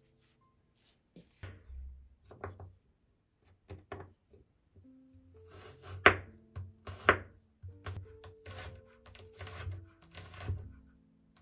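Kitchen knife cutting a garlic clove on a bamboo cutting board: a few separate cuts, the loudest two sharp knocks about six and seven seconds in, then a run of quicker chopping as the garlic is minced. Soft background music with held notes underneath.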